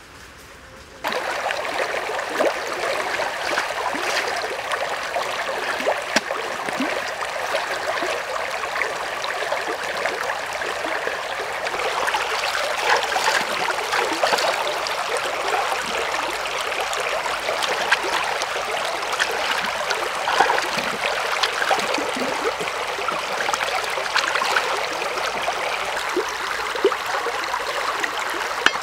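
Shallow stream running over rocks, starting suddenly about a second in, with many small splashes and clicks of water as hands wash a plucked chicken in it.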